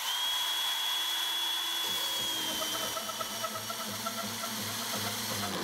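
Hilti cordless compact band saw running and cutting into a thick steel bar with a fine-toothed bimetal blade: a steady motor whine over the hiss of the blade. About halfway through, the whine dips slightly and a light rhythmic ticking sets in.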